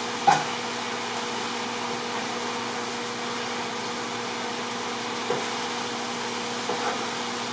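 Chicken tikka pieces and onions sizzling steadily in a large hot pan, with a sharp utensil clink shortly after the start and a light knock about five seconds in.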